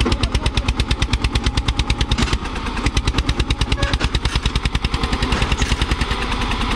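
Eicher 241 tractor's single-cylinder diesel engine working under load as it pulls a disc harrow, its exhaust giving a rapid, even chug.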